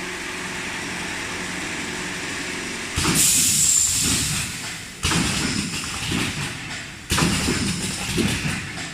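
Automatic four-side-sealing wet wipes packing machine humming steadily, then starting up about three seconds in and running in a repeating cycle, a new stroke roughly every two seconds. A burst of hiss comes with the first stroke.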